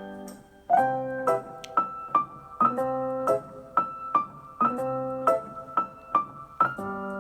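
Background piano music: single notes and chords struck about every half second, each ringing and fading.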